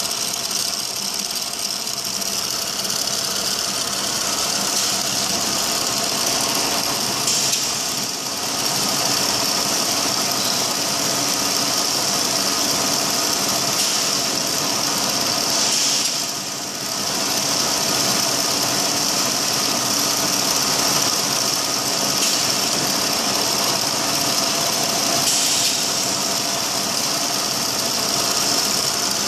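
Hydro-pneumatic double-spindle drilling unit running: steady machine noise from its electric motor and drill heads with a strong high hiss, dipping briefly twice, about a quarter of the way in and just past the middle.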